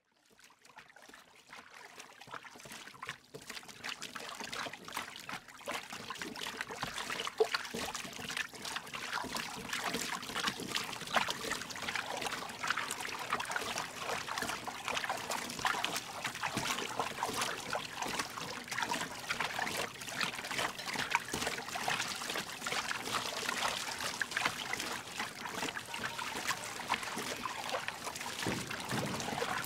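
Water splashing and trickling in many small irregular splashes, fading in from silence over the first several seconds and then going on steadily.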